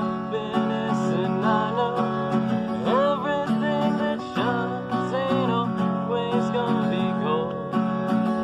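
Music: an acoustic guitar-led song in a passage without words, over a steady bass line.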